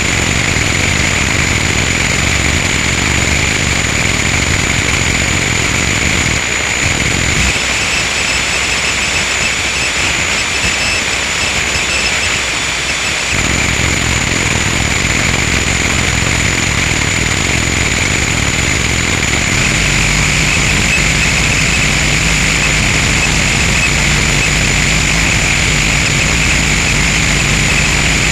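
Harsh noise music: a loud, dense wall of distorted noise with steady high tones running through it. Its low end thins out for several seconds about a quarter of the way in, then comes back heavier about two-thirds of the way through.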